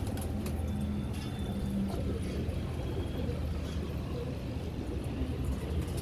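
Domestic pigeons cooing, one low drawn-out coo in the first two seconds, over a steady low rumble of city traffic.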